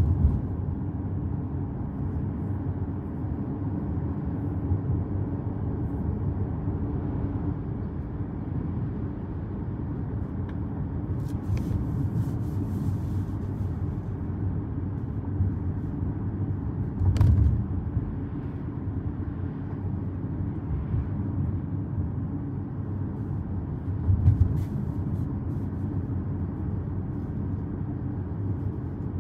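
Car driving on the road: a steady low rumble of tyres and engine, with a couple of brief louder thumps, one in the middle and one later on.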